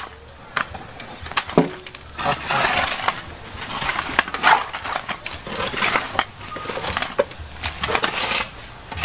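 Shovels and hoes scraping and digging into dirt, with soil tipped into a metal wheelbarrow: a run of irregular scrapes and knocks.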